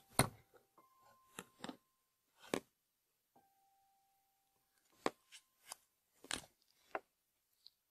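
Handling noise at a whiteboard: a clear plastic ruler being laid and shifted on the board and marker pens being picked up, giving a scattering of sharp clicks and taps, several in quick succession around the middle and toward the end.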